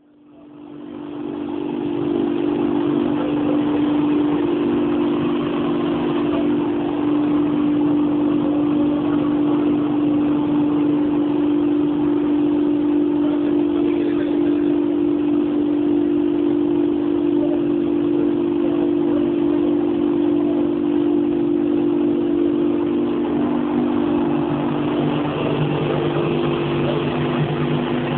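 Circular stainless-steel vibro sifter running: a steady mechanical hum with a strong steady tone over a noisy hiss. It rises over the first second or two, then holds level.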